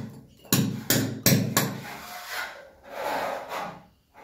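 Hammer driving a cold chisel into a plastered masonry wall, cutting a chase for a wall mixer's pipe line. It gives four sharp blows at about three a second in the first second and a half, then the blows stop.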